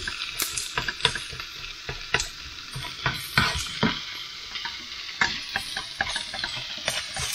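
Diced potatoes, onions, bacon and garlic sizzling in a frying pan, with a spatula scraping and knocking against the pan at irregular moments as the food is stirred.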